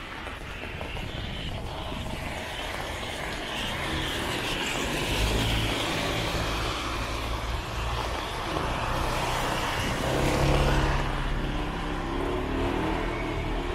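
Cars driving past on a wet street: tyres swish on the wet road over a low engine hum that builds and is loudest about ten seconds in.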